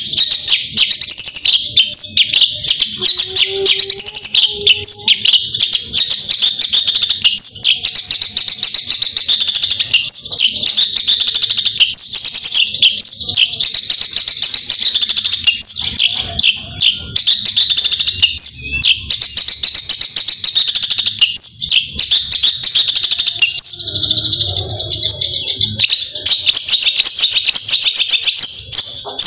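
Long-tailed shrike (cendet) singing a loud, fast, unbroken stream of high chattering notes and short whistled glides.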